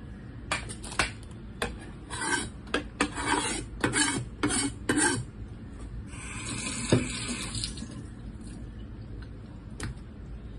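Kitchenware clattering: a string of short knocks and scrapes of a plate and utensils on a hard counter over the first five seconds, then about two seconds of rushing hiss with one knock in it, and a single click near the end.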